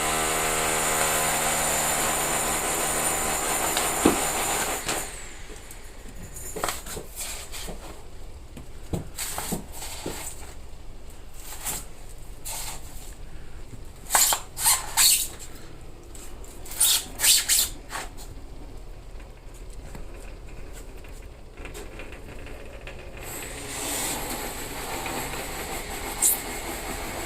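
A power tool motor runs steadily for about five seconds and stops. Then several short, sharp hissing bursts and scattered clicks come over quiet background noise.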